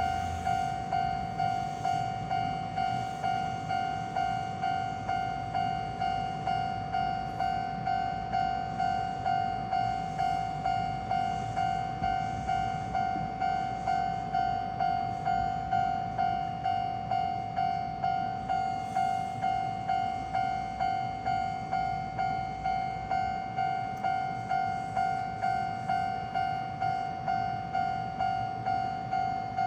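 Electronic warning bell of a Japanese railway level crossing ringing its repeated clang-clang, just under two strokes a second and steady throughout, over a low rumble.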